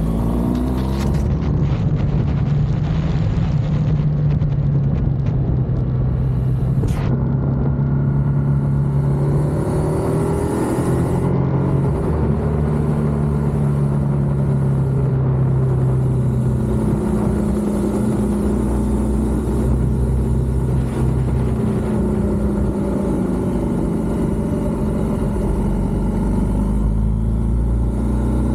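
BMW R1200GS boxer-twin engine running under way, its note rising and falling several times with throttle and gear changes, over steady wind noise.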